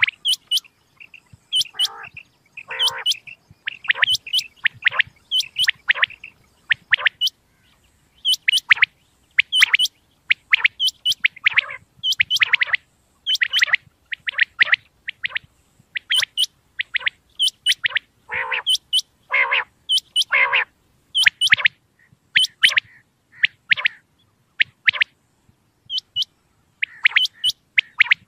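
Common quail calling over and over: short, sharp, high notes in quick clusters, with a few fuller, lower-reaching calls among them.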